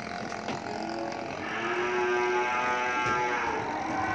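A cow mooing: one long, steady-pitched call of about two seconds, starting about a second and a half in.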